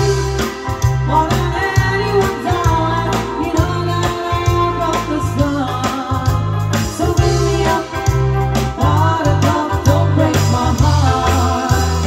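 Live band playing an upbeat pop song with female singing over electric guitar, bass guitar, drums and keyboard, with a heavy, steady bass-and-drum beat.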